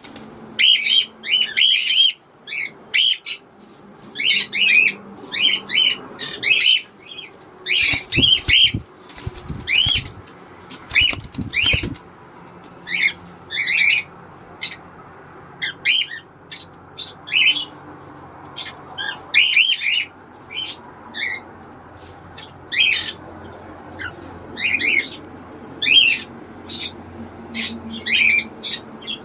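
Small pet parrots chirping: many short, sharp, high-pitched calls in quick irregular bursts, with a few low thuds between about eight and twelve seconds in.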